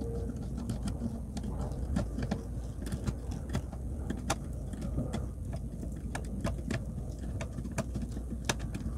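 Hand screwdriver turning a screw into the particleboard side panel of a flat-pack cubby: a run of small, irregular metallic clicks and ticks as the screw is driven, over a steady low hum.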